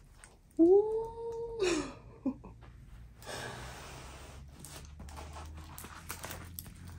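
A woman's drawn-out wordless exclamation of admiration, about half a second in, ending in a sharp breath. After it comes faint rustling of the stiff rolled canvas as it is unrolled on the carpet.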